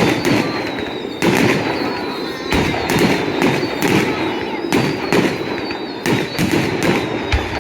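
Fireworks display: aerial shells bursting in a rapid, irregular barrage, a dozen or more sharp bangs over a continuous rumble.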